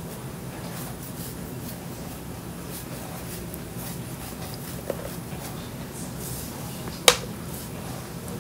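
Plastic handling noises of a dishwasher control circuit board being pressed down onto its plastic mounting pins, with a small click about five seconds in and a sharp snap about seven seconds in as the board locks into place.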